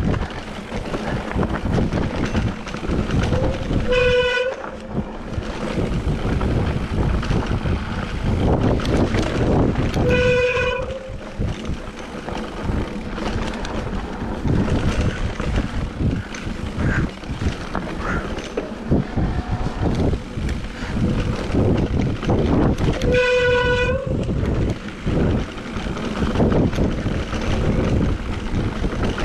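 Mountain bike rolling over a wet, muddy trail: a steady rumble and rattle of tyres and frame. Three times, about four, ten and twenty-three seconds in, the wet brakes give a short, loud honking squeal.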